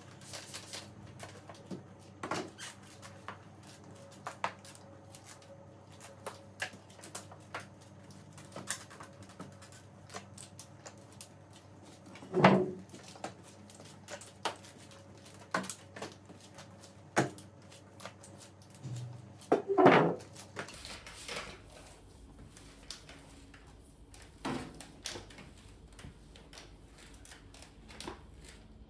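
Flat spray mop worked across a glossy tile floor: scattered light clicks and knocks, with two louder thuds about twelve and twenty seconds in.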